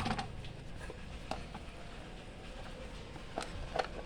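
Small plastic toy being handled: a few light clicks and knocks, two close together near the end, over a low steady hum.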